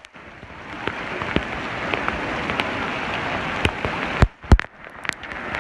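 Heavy rain pouring down, a steady dense hiss that swells in over the first second. A little past four seconds in it drops out briefly, with two sharp knocks.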